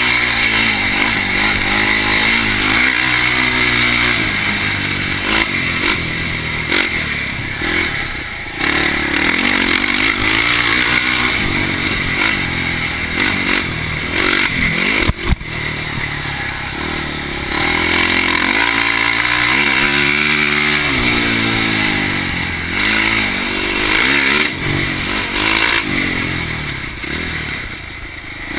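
2004 Polaris Predator 500 quad's single-cylinder four-stroke engine running under riding load, revving up and dropping back repeatedly with the throttle. A single sharp knock about halfway through.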